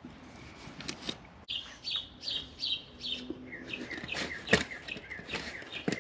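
A bird chirping over and over in short falling notes, about three a second, starting about a second and a half in and dropping lower in pitch midway. A few short knocks from the aluminium cylinder head being handled on the bench, the loudest about four and a half seconds in.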